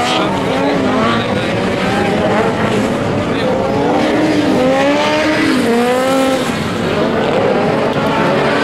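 Several VW Beetle race cars' engines racing on a dirt autocross track, the engines overlapping and revving up and down as they accelerate and shift gears.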